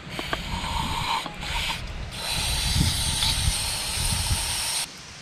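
Aerosol brake cleaner spraying into the rust-corroded steel housing of a seized rotator worm-drive motor, flushing out rust and gunk. A hiss in a few short bursts, then one longer spray of nearly three seconds that cuts off suddenly near the end.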